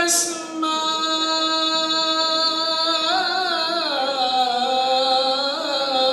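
A solo voice chanting in a melismatic Middle Eastern style. It holds one long note for about three seconds, then moves into slow, ornamented turns that glide up and down in pitch.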